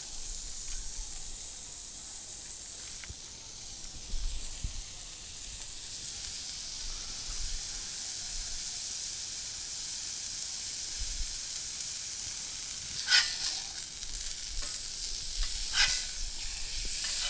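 Ground chuck burger patties sizzling in olive oil on a hot griddle, a steady hiss. Near the end there are two short, sharp scrapes of a metal spatula on the griddle as the patties are flipped.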